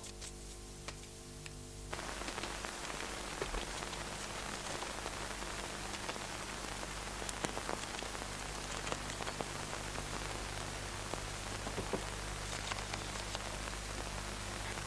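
Steady hiss with fine crackle over a low mains hum: the background noise of an old film soundtrack. The hiss comes in about two seconds in, after a quieter stretch of hum alone.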